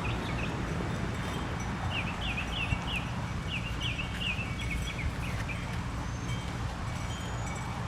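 A songbird singing a run of quick, sweeping chirps over a steady low outdoor rumble; the chirps stop about five seconds in.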